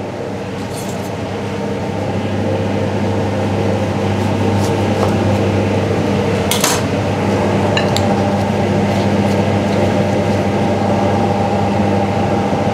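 Steady hum of a commercial kitchen's extractor fan, with several fixed tones, growing a little louder over the first few seconds. A single sharp clink of a metal spoon against a small bowl comes a little past halfway.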